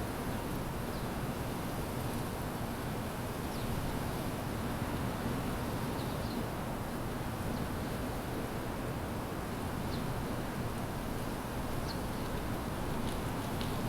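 Steady outdoor background hum of distant city traffic, with faint, short bird chirps now and then, about six times.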